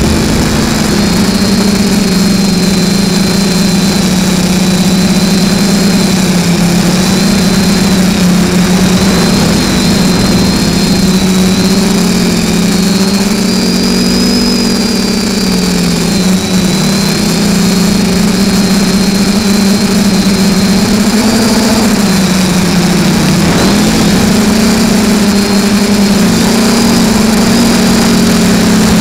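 Alien v2 FPV quadcopter's brushless motors and propellers heard from its onboard camera: a loud steady buzz whose pitch rises and dips with the throttle, with a faint high whine above it.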